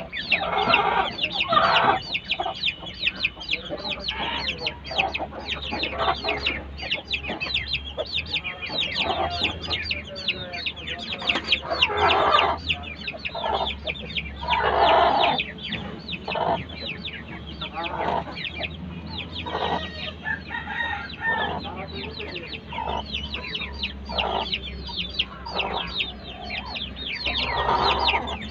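Caged Aseel chickens clucking and calling, with a constant rapid, high chirping and several louder calls about a second long.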